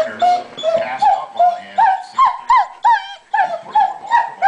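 Weimaraner dog crying in a rapid series of short, high whines, each rising and falling in pitch, about three a second: separation distress at a companion having left.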